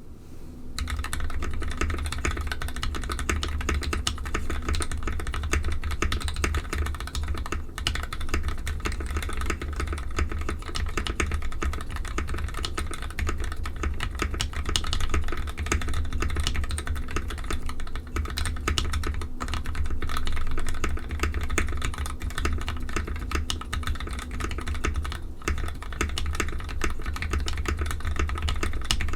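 Continuous typing on an NK65 Entry Edition mechanical keyboard with lubed Gateron KS3 Yellow linear switches and EPBT ABS keycaps: a steady, dense stream of keystrokes.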